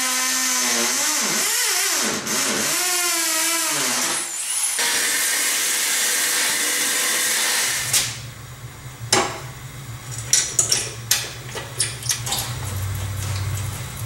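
Corded hammer drill boring into cinder block, its motor pitch rising and falling as it cuts holes for quarter-inch Tapcon anchors. It stops suddenly about eight seconds in and is followed by a run of sharp clicks and knocks.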